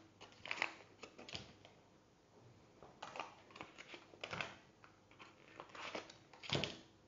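Butter wrapper crinkling and rustling in a series of short, faint spurts as it is peeled open and a piece of butter is taken off it.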